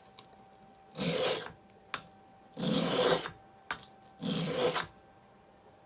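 Metal blade edge scraped across a dry whetstone in three separate sharpening strokes about a second and a half apart, with light clicks between strokes.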